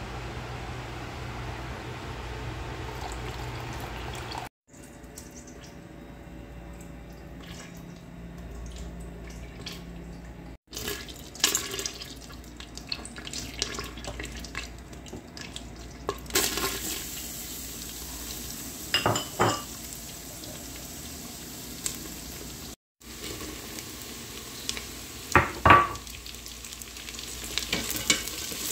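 Home cooking in short cuts: a steady low hum at first, then oil sizzling and crackling in a stainless steel pot. A few sharp clinks of a utensil against the pot come in the second half. Near the end, a spatula stirs sliced carrots and onions in the hot oil.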